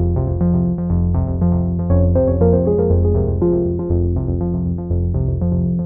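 Background music: a synthesizer melody of quick, evenly paced notes over a bass line.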